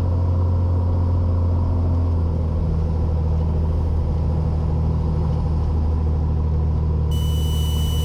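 Cessna 182's piston engine and propeller droning steadily in the cabin on short final approach, the engine note shifting slightly about two seconds in. Near the end a burst of radio hiss comes in over the headset.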